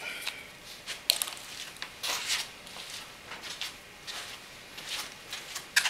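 Hand tools being rummaged for and handled: faint scattered clicks and rustling, with a sharper click about a second in and another near the end.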